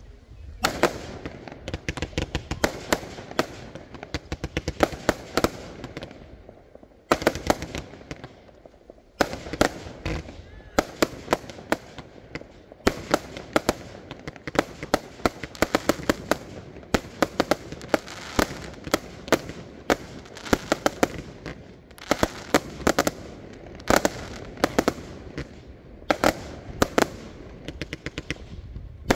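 Fireworks display: rapid volleys of sharp bangs and crackling from aerial shells bursting overhead, with a couple of short lulls.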